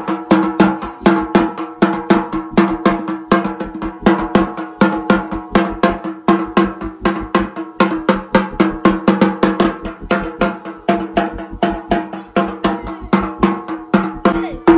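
A dhak, the large Bengali barrel drum, beaten with thin sticks in a quick, even rhythm of about four strokes a second.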